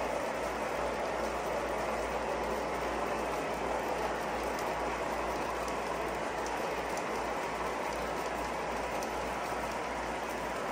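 O gauge model freight cars rolling past on three-rail track: a steady rumbling clatter of metal wheels on the rails, with faint light ticks from the rail joints.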